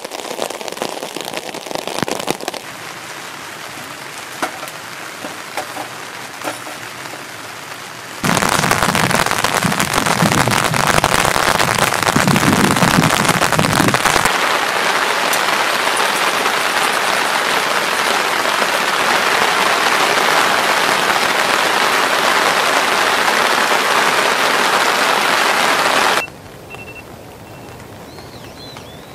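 Heavy rain falling on a camping tarp, a steady hiss with scattered drop clicks that grows much louder about eight seconds in and stays loud. It cuts off suddenly about three seconds before the end to a much quieter outdoor background.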